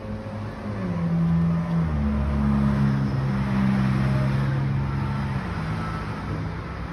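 A motor vehicle engine running close by, its low hum stepping up and down in pitch. It swells about a second in and eases off after about five seconds.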